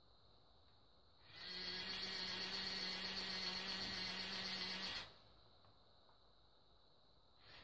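Small electric motor of a toy tower crane running for about three and a half seconds, a steady hum under a hiss, starting about a second in and cutting off suddenly.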